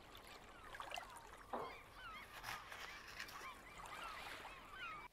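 Faint, busy chorus of birds calling, with many short chirps sliding up and down in pitch and overlapping one another. A few soft crunches or rustles sound about a second in and again around two and a half seconds.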